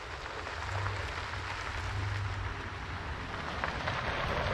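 Toyota FJ Cruiser on the move: steady road and tyre noise over a low engine hum.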